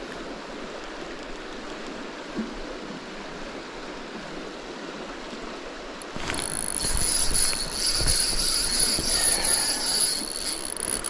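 Creek water running steadily. About six seconds in, a louder sound with a low rumble and a steady high-pitched whine joins in.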